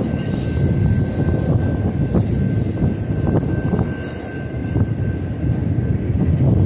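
Intermodal freight cars of a BNSF train rolling past: a steady heavy rumble of steel wheels on rail, with a few sharp clacks and a thin steady high tone over it.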